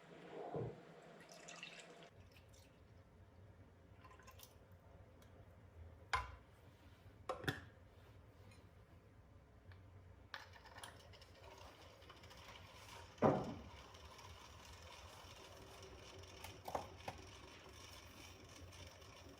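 Quiet kitchen handling sounds: a few sharp knocks and clinks, the loudest about two-thirds of the way through, over a faint steady low hum.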